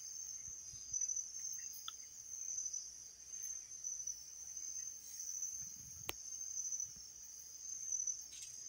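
Crickets chirping in a steady high trill, with one sharp click about six seconds in.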